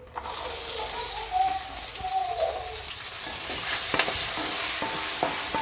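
Small shallots hitting hot coconut oil and sizzling as they fry. The sizzle starts suddenly as they go in and grows louder about halfway through, with a few knocks of a utensil against the pan.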